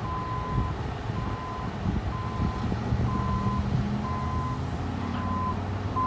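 Heavy construction machine's backup alarm beeping steadily, about one half-second beep a second, over the low running of the machines' diesel engines.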